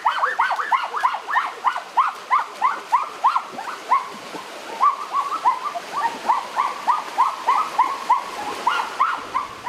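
Small dog yapping over and over in short, high yips, about three a second, with a brief let-up about four seconds in.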